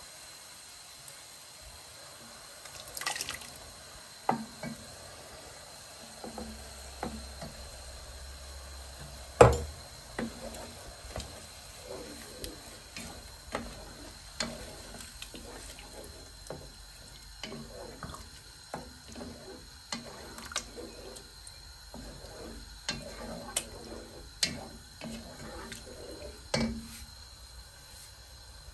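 Jarred tomato-basil sauce poured into a pot of browned minced meat, then a wooden spatula stirring the wet sauce, with scattered knocks against the pot. One sharp knock about nine seconds in is the loudest sound.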